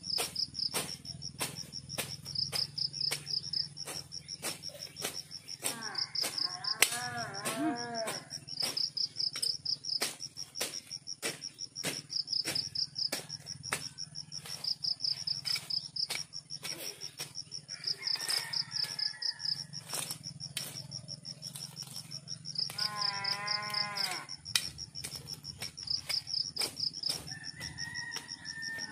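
Insects trilling steadily in a high, fast-pulsing chirr, with sharp ticks about two a second. A farm animal calls several times, in short calls that bend up and down.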